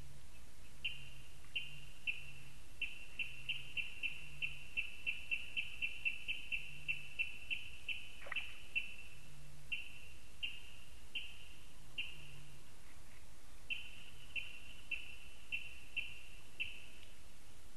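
A bird's short, high call repeated in a long series, a few calls a second, quickening in the middle of the series. A single falling whistle cuts across it about eight seconds in.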